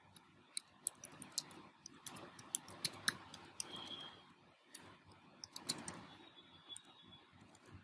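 Typing on a computer keyboard: irregular runs of quick key clicks with short pauses between words.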